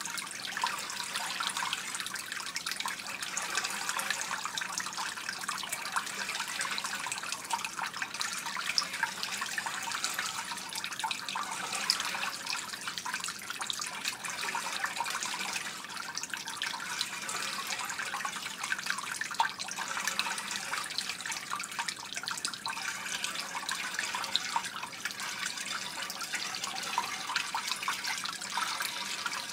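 A stream of water falling into standing water, trickling and splashing steadily with many small crackling splashes.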